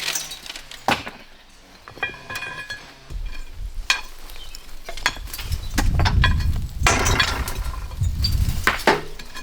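Loose stones being pulled from a thick old stone wall, clinking and knocking against each other in a series of sharp impacts. A low rumble runs underneath from about three seconds in.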